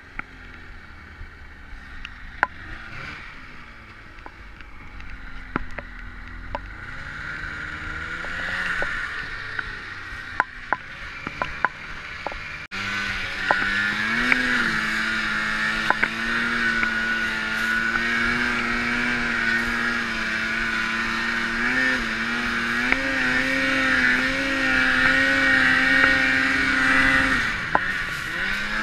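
Snowmobile engine running through deep snow, its revs rising and falling. About halfway through, after an abrupt break, it runs loud and steady at high revs, dipping briefly near the end, with scattered sharp clicks throughout.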